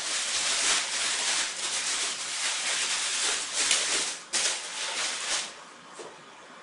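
Plastic bubble wrap rustling and crinkling as it is folded and wrapped around a laptop, dying down about five and a half seconds in.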